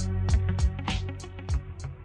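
Background music with a steady drum beat and bass, growing quieter toward the end.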